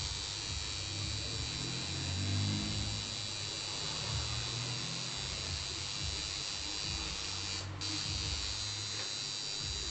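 Electric tattoo machine buzzing steadily as the needle works into the skin, with a brief stop about eight seconds in before it starts again.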